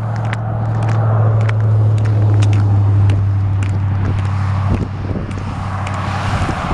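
Footsteps crunching on packed, icy snow at a steady walking pace, about two steps a second, over the steady low hum of road traffic. The hum is loudest in the first half and fades about five seconds in, and the rushing tyre noise of a car going by rises near the end.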